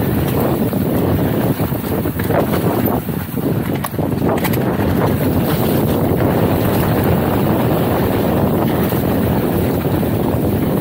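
Wind rushing over the camera microphone while an enduro mountain bike's tyres roll fast over loose, sandy dirt singletrack, a steady rumbling hiss. A few sharp ticks of debris and trail bumps come a couple of seconds in.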